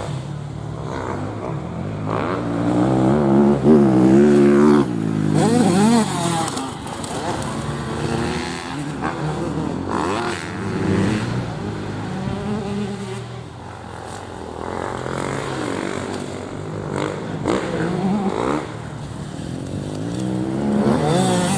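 Grasstrack motorcycle engines revving up and down, pitch repeatedly rising and falling as the throttle is opened and closed through corners, loudest a few seconds in and again near the end.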